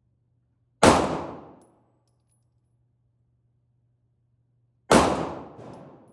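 Two pistol shots about four seconds apart, each a sharp crack followed by a ringing echo that fades within a second.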